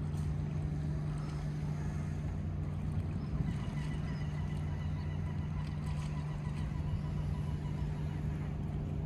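Steady low mechanical hum of a moored motor yacht's machinery running, with faint thin higher tones drifting in and out through the middle.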